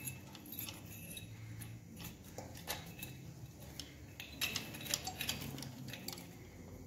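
Light metallic clinks and chain rattles as an aluminium motorcycle cylinder is slid onto its studs with the cam chain running through it. The clicks come scattered, busiest a little past the middle.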